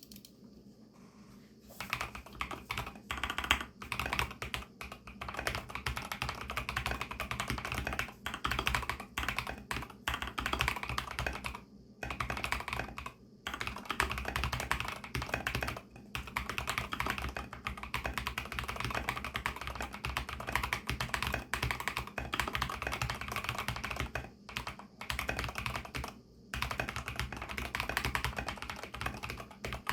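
Fast continuous typing on a mStone Groove T mechanical keyboard with MMD Milky switches and MA-profile keycaps. The switches are fully lubed and the board has silicone sound-dampening foam. The typing starts about two seconds in and stops briefly a few times.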